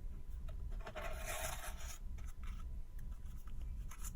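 Cardboard packaging and paper being handled as the box's contents are taken out: a rubbing, scraping slide about a second in, with scattered small clicks and taps.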